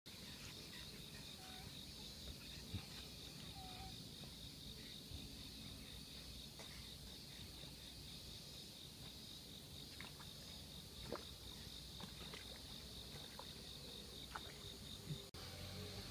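Faint, steady insect chirring: a cricket-like trill in an even pulsing rhythm, with a few faint short chirps over it.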